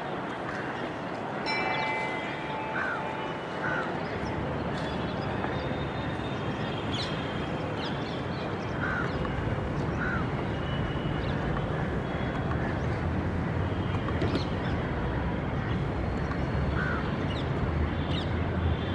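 Birds calling now and then, short separate calls scattered through, over a steady low outdoor rumble. A brief high multi-toned sound comes about a second and a half in.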